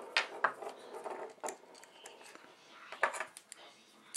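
Light metallic clicks and taps from a small bit screwdriver and its metal bits being handled, scattered irregularly with a small cluster about three seconds in.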